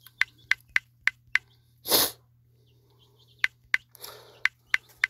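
Phone on-screen keyboard clicking as a word is typed letter by letter: five quick key clicks, a pause of about two seconds, then the clicks start again about three a second. About two seconds in, one loud, short burst of breath noise is the loudest sound.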